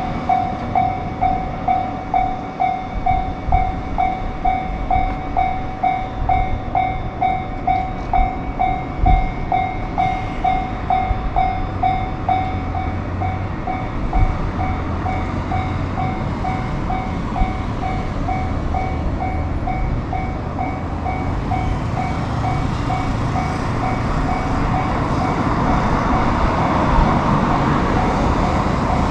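Japanese railroad crossing's electronic warning bell ringing in an even pulse, about two dings a second, while a train runs through with a rumble that grows louder toward the end.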